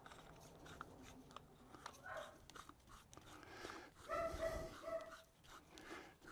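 Faint light clicks and taps of small steel parts being handled and fitted together, with a brief high whine in two short pieces about four seconds in.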